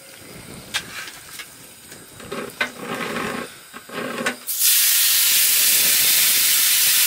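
Metal tongs clicking and scraping in a foil tray of roast lamb. About four and a half seconds in, a piece of lamb goes into a hot frying pan on a portable gas stove and starts to sizzle loudly and steadily.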